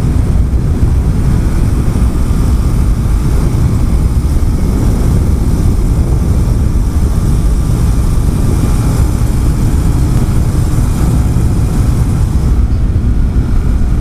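Single-cylinder Honda CBR sport bike ridden at speed: a steady, loud rush of wind on the on-bike microphone with the engine running underneath.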